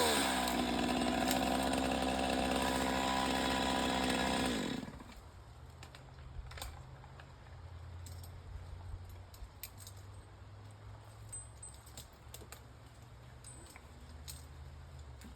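Chainsaw idling steadily after being revved, then shut off about five seconds in. Afterwards only a low hum and scattered light metallic clicks and jingles.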